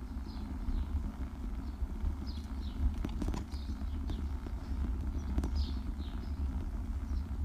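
Steady low rumble and irregular knocking and rattling from a bicycle rolling over brick paving, picked up by a GoPro mounted low on the bike. Short high chirps come and go above it.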